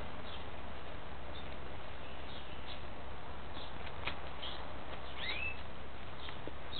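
Small bird chirping faintly in short, scattered notes, one of them a rising call about five seconds in, over a steady hiss.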